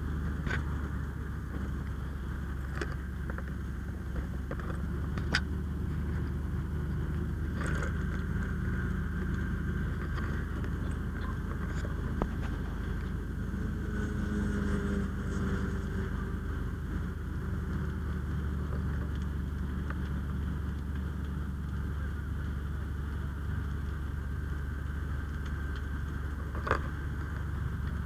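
A fire engine's diesel running steadily while it pumps water to the hose lines, heard as a low even hum, with a few sharp clicks and knocks scattered through.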